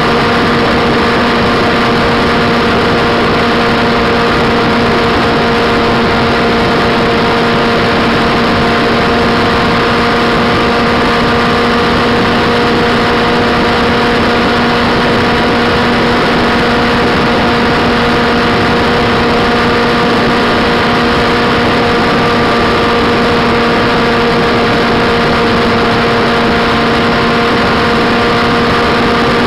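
Motorcycle engine running at a constant motorway cruising speed: a steady, unchanging drone with a few humming tones over constant wind and road rush.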